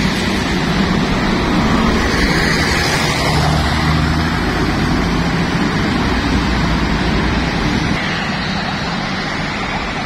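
Diesel engine of an intercity bus pulling away past the microphone: a loud, steady rumble with road noise that eases after about eight seconds.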